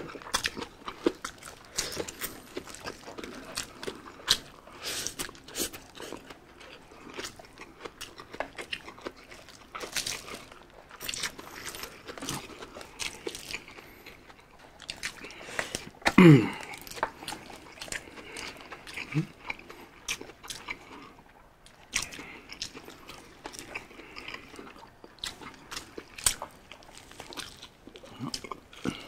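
Close-miked chewing, biting and wet mouth clicks of people eating biryani rice and fried chicken and fish with their hands. A short vocal 'mm' falling in pitch comes about halfway through and is the loudest moment.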